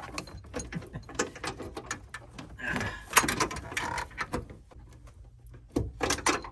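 Clicking, knocking and rattling of plastic interior trim and seatbelt hardware being handled and worked into place by hand, a busy run of small knocks with a louder cluster and a brief scrape about three seconds in and another cluster near the end.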